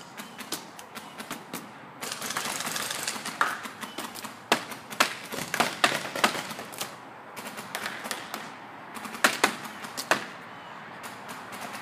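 Paintball markers firing: irregular sharp pops, some single and some in quick strings, the two loudest a little before the end.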